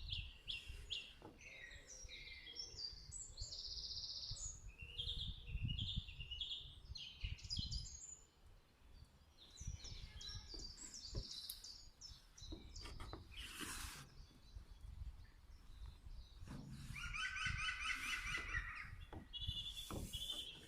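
Several wild birds singing and chirping, with many short whistled notes and a fast trill near the end. A low rumble runs underneath.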